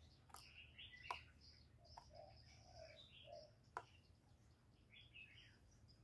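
Faint, scattered chirps and twitters of small birds, with four sharp clicks. Three soft low notes come about two to three and a half seconds in.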